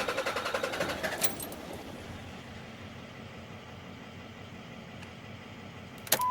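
A 5.9 L Cummins common-rail diesel cranking on its starter with an even, rapid beat. About a second in the cranking stops with a click and the engine has not fired: a crank-no-start, with the fuel system building no rail pressure. A sharp click comes near the end.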